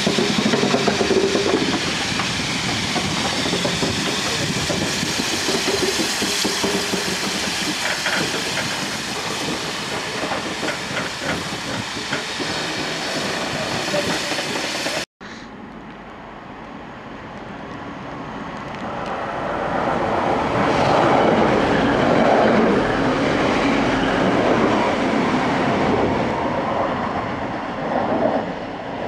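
BR Standard Class 4 2-6-0 steam locomotive No. 76084 hissing steam loudly at close range. After a sudden cut about halfway, a quieter station scene follows as a diesel multiple unit approaches, its sound swelling a few seconds later.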